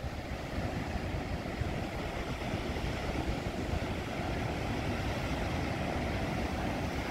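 Heavy storm surf, waves of 20 to 30 feet, breaking on rocks and cliffs: a steady, deep wash of noise with no single crash standing out, and wind on the microphone.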